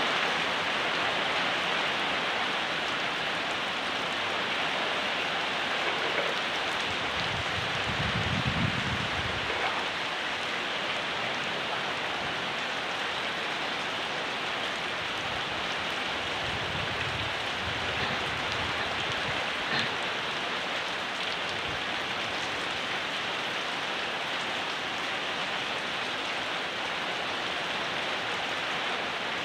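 Steady rain falling, a dense, even hiss of drops. A low rumble comes in briefly twice, about eight and sixteen seconds in.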